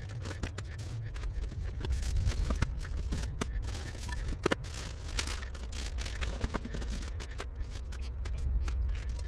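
Camping gear being taken out of a soft touring bag and set down on a ground sheet: rustling with many scattered clicks and light knocks, over a steady low rumble.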